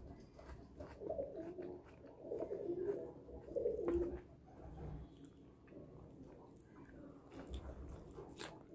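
Eating by hand close to the microphone: soft chewing and small mouth and finger clicks as rice and bagoong are picked up and eaten, with short bouts of a low, hum-like sound in the first half.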